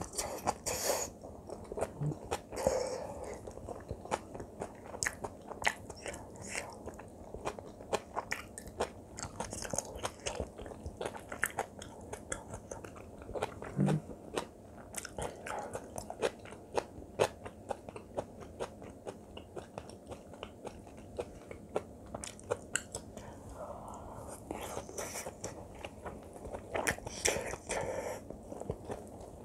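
Close-miked chewing of a mouthful of spicy kimchi fried rice with Spam: many short wet mouth clicks and smacks, and softer chewing between them. The chewing is louder near the start and again near the end.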